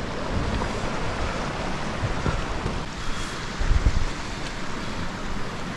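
Steady rushing of a rocky mountain stream, with wind buffeting the microphone in low rumbling gusts about four seconds in.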